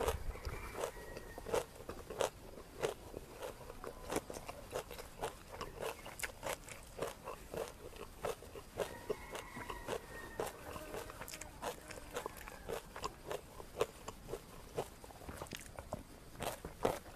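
Close-miked chewing of crunchy spicy chicken-feet salad (tam lep mue nang), with many quick, irregular crunches and bites.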